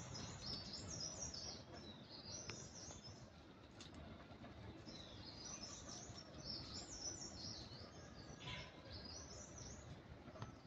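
Small birds chirping in quick, high-pitched runs, with a short lull a few seconds in, over a faint steady background hiss.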